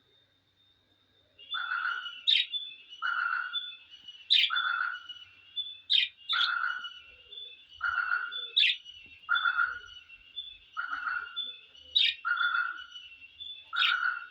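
Small pet parrots calling in a fast, very even rhythm: a short rasping call about every 0.7 seconds, with sharper high chirps every second or two over a thin steady high tone, starting about a second and a half in.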